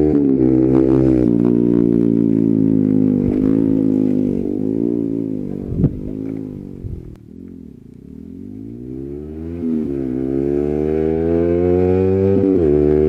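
Yamaha XSR 155's single-cylinder engine running through an SC Project aftermarket exhaust with its silencer insert fitted, at steady revs at first. A sharp click comes about six seconds in. The engine note then falls in pitch and loudness for a couple of seconds before rising again.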